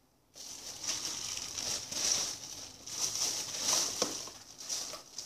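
Plastic packaging crinkling and rustling as hands rummage through a pile of squishy toys, starting about a third of a second in and going on in uneven surges.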